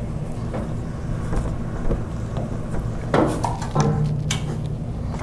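GFP 200 Series cold roll laminator running, a steady electric drive hum as its rollers turn and draw a foam core board through the nip. A short louder sound comes about three seconds in.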